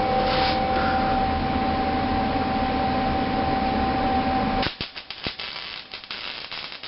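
A steady machine hum with two clear tones stops about four and a half seconds in. It is followed by irregular crackling and sharp pops: a MIG welder's arc sputtering in short, broken bursts as the wire touches the steel, on an attempt that misses the joint.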